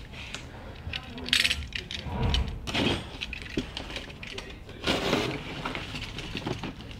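Cardboard shipping boxes and arrow packaging being handled: rustling and scraping with light clicks, clinks and knocks, the loudest rustles about a second and a half in and again about five seconds in.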